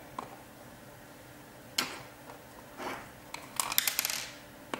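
Test leads and small metal hardware handled on a desktop: a sharp click about two seconds in, then a short run of light metallic clinks and rattles near the end.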